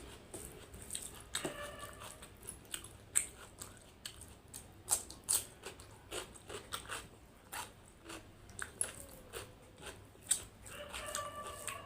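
Close-miked mouth sounds of a person eating chicken curry with rice: irregular wet clicks, smacks and chewing, with no steady rhythm.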